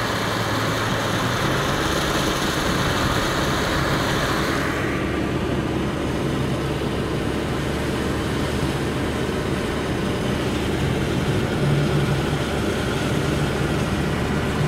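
Steady road and engine noise inside a moving car's cabin. A brighter rushing hiss over it drops away about four and a half seconds in, leaving a lower rumble.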